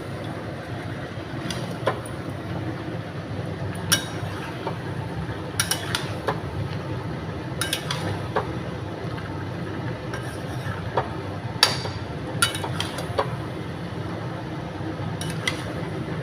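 A spatula clinking and scraping against a cooking pan at irregular intervals, about ten sharp clicks, the loudest near the end, over a steady low hum. Chicken liver and gizzards are being stirred as they fry with spices at the kosha stage.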